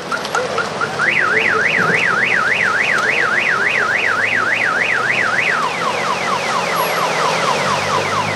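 Car alarm sounding and cycling through its tones: a quick repeated chirp, then from about a second in a fast up-and-down wail, switching near the end to rapid falling sweeps.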